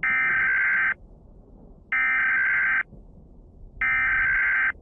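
Emergency Alert System SAME header: three bursts of digital data tones, each just under a second long and about a second apart, the coded signal that opens an emergency alert broadcast.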